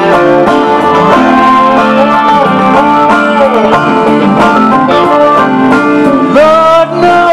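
A live band playing an instrumental intro, with a picked banjo and a guitar; some notes bend in pitch.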